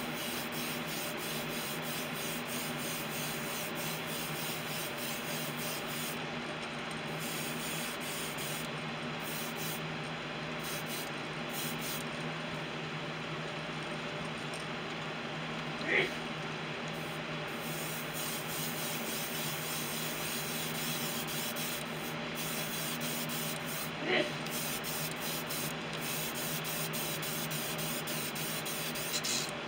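Iwata airbrush spraying pearl silver paint: a steady hiss of air, with two short clicks, about halfway through and again about two-thirds in.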